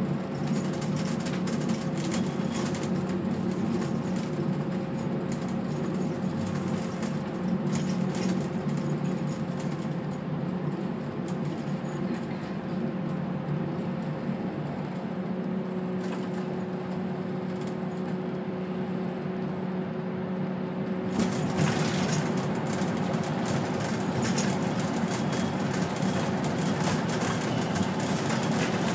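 Bus interior while driving: the engine runs with a steady hum over road and tyre noise, and its note drops in pitch about halfway through. About two-thirds of the way in, the road noise turns suddenly louder and brighter as the bus enters a tunnel.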